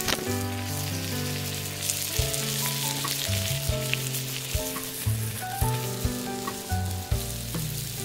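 Meat sizzling and crackling in a pan over a portable butane gas stove, with a few light clicks as it is handled, under background music of held notes.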